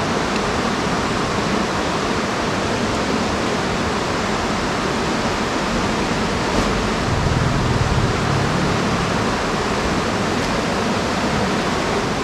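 Steady rushing of a river running high after a night of heavy rain. A brief low rumble rises about seven seconds in.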